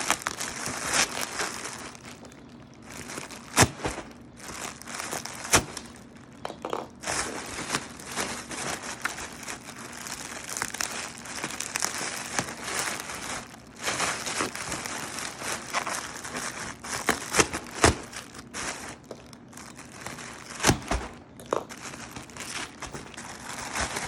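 Bubble wrap and plastic packing being unwrapped and crumpled by hand, a continuous crinkling rustle with scattered sharp snaps and crackles.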